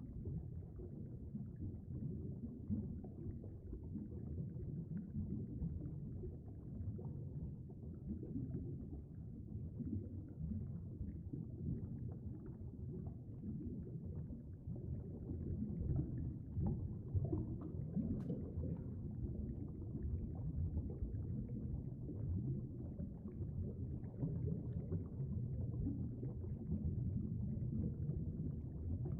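Muffled, steady low rumble of moving stream water picked up by a submerged camera, with faint crackling and one sharp click a little past the middle.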